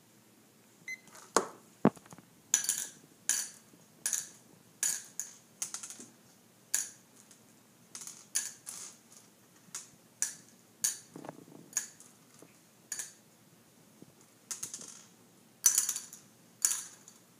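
Small hard candy-coated candies clicking as they are dropped one at a time into small plastic cups, a sharp tap roughly once or twice a second throughout.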